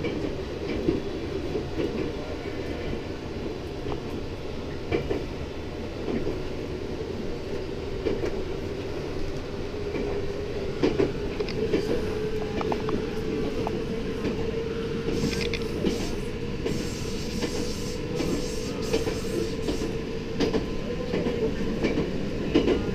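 Passenger train running, heard from inside the car: a steady rumble with scattered clicks from the wheels and a steady tone that rises slowly in pitch.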